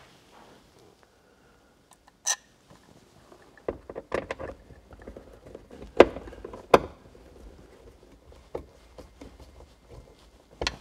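Screwdriver and plastic mounting bracket clicking and knocking as a mirror monitor is screwed onto its mount: scattered small taps, with two sharper knocks a little past halfway.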